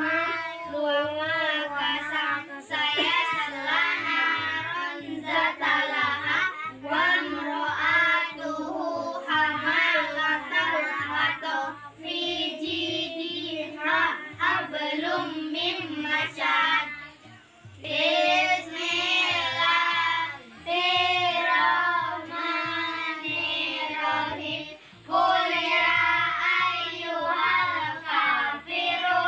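A group of children chanting together in a sing-song voice, line after line, with short breaks between phrases.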